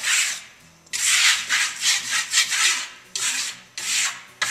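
Hand trowel scraping over wet clay plaster in repeated strokes, with a short pause about half a second in. This is compressing an over-wetted plaster surface: the trowel drags through slurry instead of pressing the clay tight.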